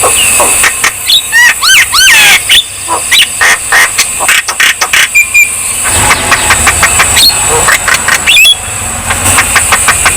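Javan myna calling loudly and rapidly: a dense run of sharp clicks and harsh chattering notes mixed with short rising and falling whistles.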